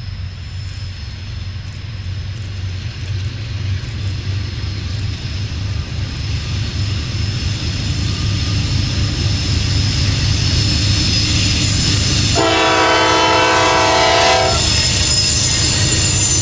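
A CSX diesel freight locomotive approaches, its engine rumble growing steadily louder. About twelve seconds in, its air horn sounds a chord of several notes for about two seconds. Near the end the freight cars roll past.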